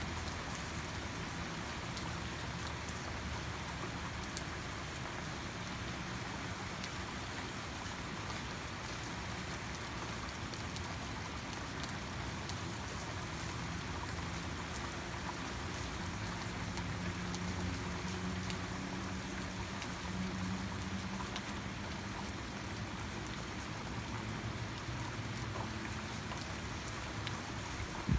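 Steady rain falling, with many individual drops ticking on a hard surface. A low hum underneath comes and goes.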